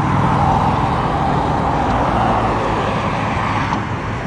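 Road traffic passing close by on the bridge: a steady rush of car tyres over a low engine hum, swelling and easing as vehicles go by.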